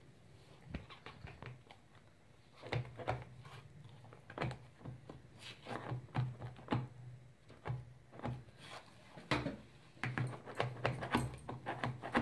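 Irregular small clicks, taps and scrapes: a measuring scoop digging baking soda out of a cardboard box and tapping it into a plastic funnel on a plastic bottle.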